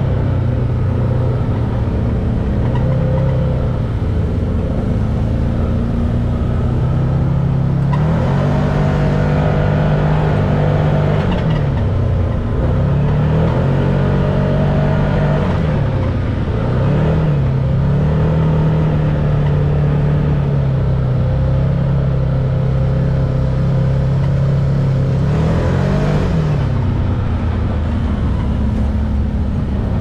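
Can-Am Maverick X3 side-by-side's turbocharged three-cylinder engine running steadily along a dirt trail, heard from the cab. Its pitch drops and climbs again a few times as the throttle is eased off and reopened.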